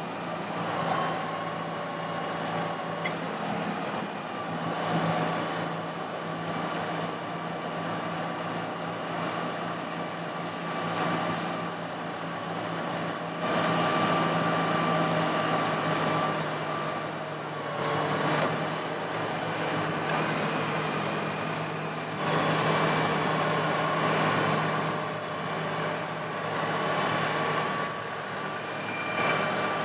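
Bucket truck running with its hydraulic system working as the Altec AT40M aerial boom is lowered and stowed: a steady engine hum with a constant whine over it. About 13 seconds in it grows louder for a few seconds with a thin high whistle, and it swells again around 22 seconds.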